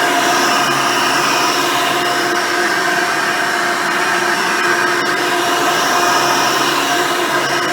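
Hoover Decade Elite Soft & Light upright vacuum cleaner running, its motor and single-row brush roll making a steady drone with several steady tones. The tone shifts slightly every few seconds.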